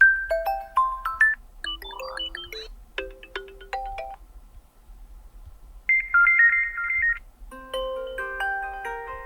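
Redmi Note 11 Pro default ringtones previewed one after another. Each short melodic phrase of electronic chime and mallet-like notes is cut off after about a second and replaced by the next, with a pause of about a second and a half midway.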